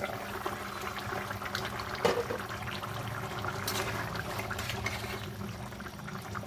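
Chicken and potato curry with a thin gravy bubbling in the pot, a steady crackle of small pops, with one sharper knock about two seconds in.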